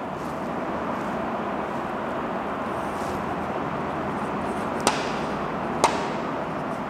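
Steady background noise with two short sharp taps about a second apart near the end. The taps come from a sheet of paper and a marker being handled on a desk as writing starts.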